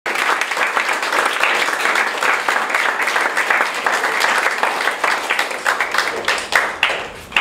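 Audience applauding, the claps thinning out and dying away near the end.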